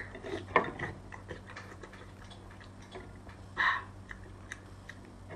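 Close-up eating sounds of a large sea snail: small wet clicks and smacks of chewing and of the soft snail meat being pulled apart by hand, with a louder click about half a second in and a brief louder mouth sound about three and a half seconds in.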